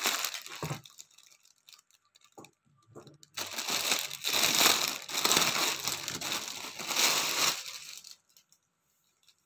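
Clear plastic packaging crinkling and rustling as hands unwrap a folded clothing set: a short rustle at the start, a few light handling clicks, then a loud stretch of continuous crinkling lasting about four seconds.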